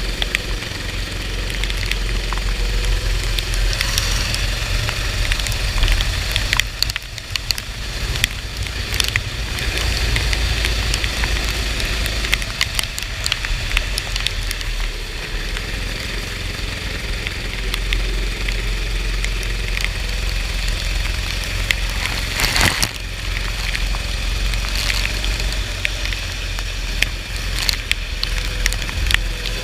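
Go-kart engine running through a race on a soaked track, under a heavy rumble and hiss of wind and water spray, with scattered sharp crackles throughout.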